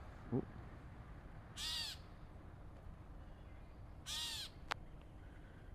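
Gray catbird giving its nasal, cat-like mew call twice, about two and a half seconds apart.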